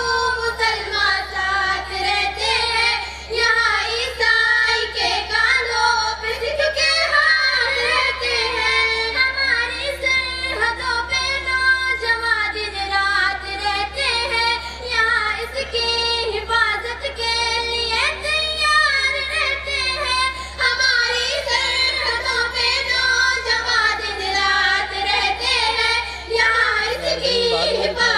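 A young female voice singing a patriotic Hindustani tarana, a solo melodic line that glides and holds notes with only brief breaths.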